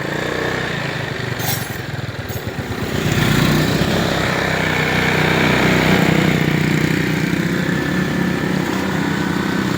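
GY6 scooter's four-stroke single-cylinder engine running, getting louder about three seconds in and holding steady, as the scooter is taken out on a road test. The engine has just been rebuilt, its exhaust valve lapped to cure the compression loss that made it hard to start.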